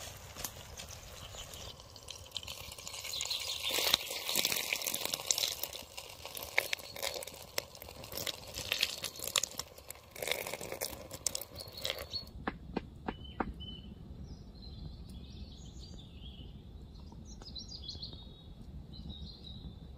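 A wooden stick stirring wet flour batter in a carved wooden bowl, with sticky clicking and scraping. About twelve seconds in this gives way to a few clicks and then birds chirping over a low steady hum.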